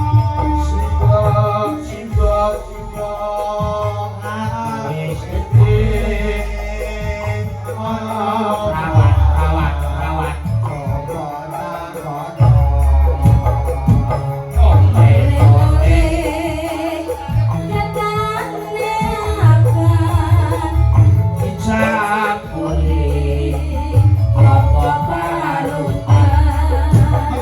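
Live band music with singing over a heavy, pulsing bass beat.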